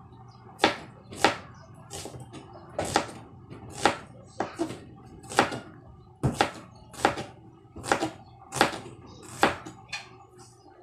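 Kitchen knife slicing a red onion on a plastic cutting board: a steady run of sharp knocks of the blade against the board, a little more than one a second, stopping near the end.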